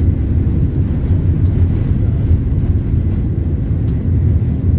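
Boeing 767-300 jet engines running at takeoff power, heard from inside the passenger cabin as a steady low rumble.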